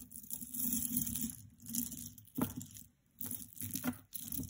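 Hands rummaging through and pulling out a tangle of beaded costume-jewelry necklaces on a cloth-covered table: rustling and crinkling in three short bursts, with a few sharp clicks of beads and metal.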